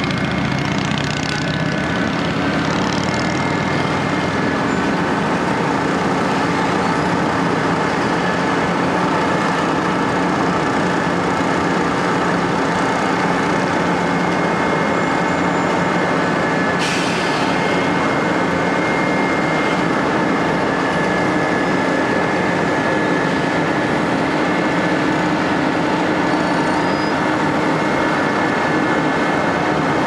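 Heavy diesel road-paving machinery running steadily: a continuous engine drone with a steady hum of several tones. About halfway through, a hissing noise joins abruptly and carries on.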